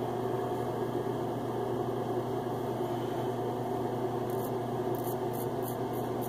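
Double-edge safety razor scraping through lathered stubble. Short, crisp strokes come about twice a second in the second half, over a steady low hum.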